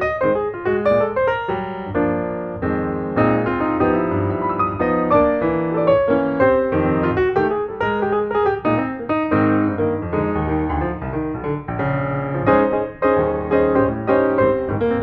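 Background piano music with a busy run of short notes.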